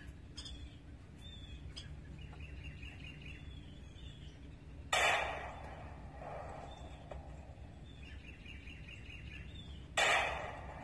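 Two shots from a SCCY CPX2 9mm pistol, about five seconds apart, each echoing briefly, as the shaving-cream target can is knocked about. Birds chirp faintly throughout.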